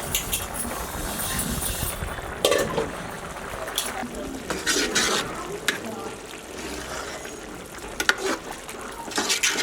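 Cooking sounds: utensils clinking and knocking against pots, with stirring and some liquid sounds.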